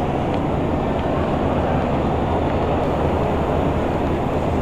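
Steady low rumble of a large exhibition hall's background noise, with no single event standing out.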